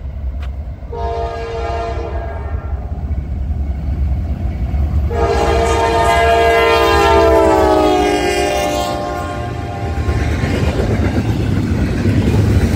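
Freight locomotive air horn sounding a chord: a short blast, then a long blast of about four seconds that drops in pitch as the engine passes, the pattern that closes a grade-crossing signal. After it the double-stack intermodal cars rumble and clatter past.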